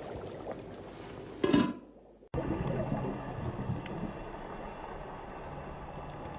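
A short, loud sound effect from an animated scene about one and a half seconds in, fading out. After a sudden cut comes the steady hiss and low rumble of water noise picked up by an underwater camera.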